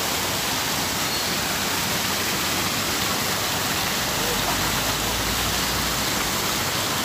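Several vertical fountain jets splashing back into a shallow pool, a steady even rush of falling water.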